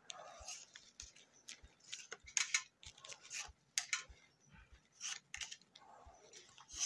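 Pokémon trading cards being flicked through by hand, each card slid off the front of the stack and tucked to the back: a quiet, irregular string of crisp card-on-card slides and snaps.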